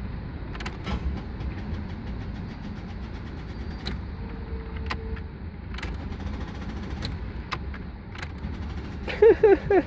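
Ignition of a GMC Vandura van being turned over and over, giving a series of single sharp clicks at irregular intervals over a steady low rumble: the van will not start, its battery run flat by lights left on.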